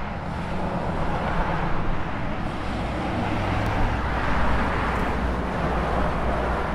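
Steady engine and road rumble heard from inside a moving bus.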